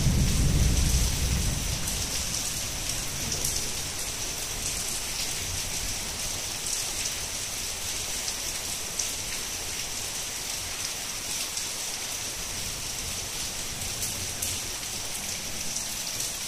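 Steady heavy rain falling and pattering on surfaces, with the low rumble of thunder dying away in the first couple of seconds.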